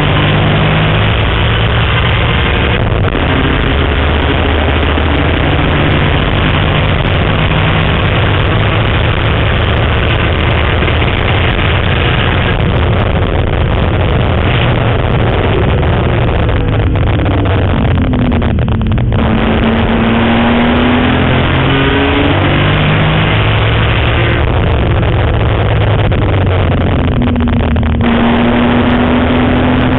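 BMW M3 race car's engine at hard throttle on a race track, heard loud from inside the cabin with road and wind noise. Its pitch drops and climbs again about two-thirds through, with short dips at the gear changes.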